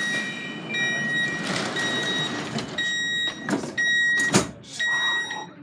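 Munich U-Bahn train's door warning signal: a high beep of about half a second, repeating roughly once a second. Sharp thumps come between the beeps, the loudest a little past the middle.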